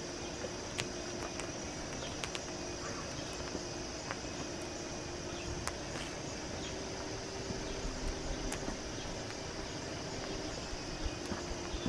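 Popcorn kernels scorching under molten lava, giving off scattered sharp cracks and pops, a few every second or two, over a steady high insect chirring.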